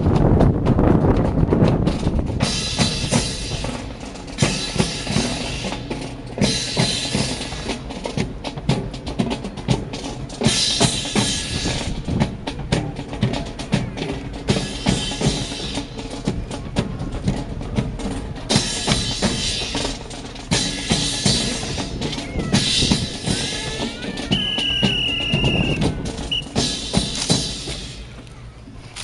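Drums playing a steady marching cadence, dense snare and bass drum strokes, with recurring bursts of hiss about a second long. A brief high whistle-like tone sounds near the end.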